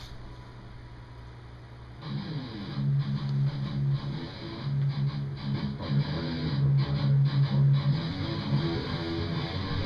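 Electric guitar music with bass starts abruptly about two seconds in, after a low steady hum.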